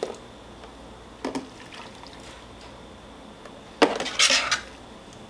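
Soup being ladled from a Multo's stainless steel jug into a ceramic bowl. There are soft splashes of liquid, and just before four seconds in a sharp metallic clink of the ladle against the jug, followed by a brief pour.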